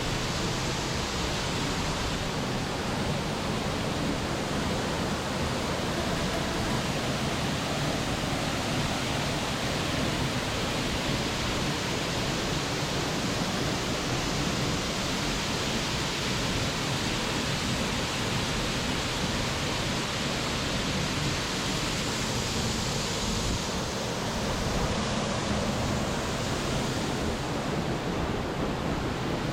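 Steady, unbroken rush of water from a waterfall and the river below it.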